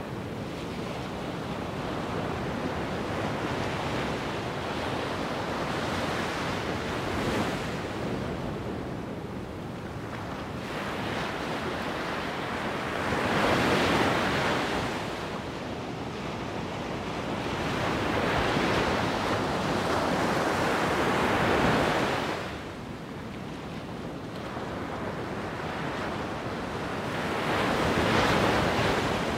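Wind rushing over the microphone: a steady noise that swells in gusts, with three stronger surges, the middle one the longest.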